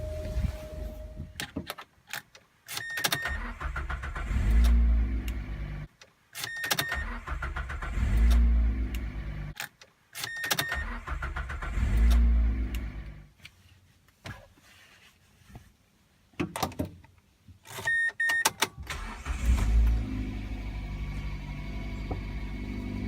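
Mazda Demio engine being started again and again: each time a short electronic beep, then the starter cranks and the engine catches, runs for a few seconds and is switched off. This happens three times in a row; on a fourth start, about two-thirds of the way through, it stays running and settles into a steady idle. The car has a suspected failing fuel pump, whose symptom is the starter having to turn more times before the engine fires.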